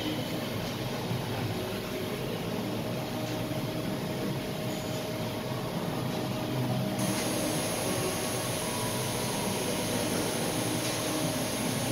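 Welding arc running continuously inside a steel tank, a steady noise with no break, turning brighter about seven seconds in.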